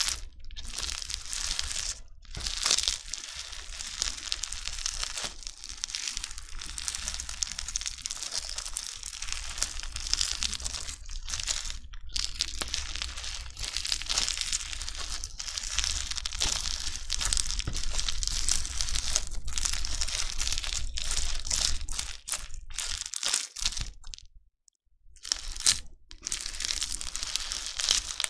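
Crunchy bingsu slime being squished and worked, a dense run of crackling crunches from the beads in the slime. It stops briefly a few times, the longest break coming near the end.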